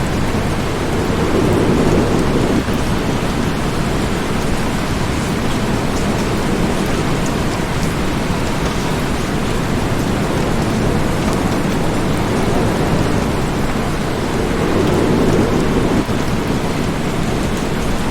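Heavy, steady rain falling, with two low swells in the sound, about a second in and near the end, each cutting off suddenly.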